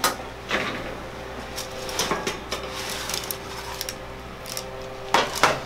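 Oven door opening, then a metal baking sheet being slid out off the oven rack, with a few sharp knocks and clatters of metal on metal.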